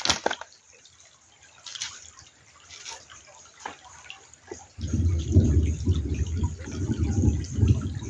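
Water dripping and lightly splashing, then from about five seconds in a loud, low, rushing rumble of water that pulses unevenly.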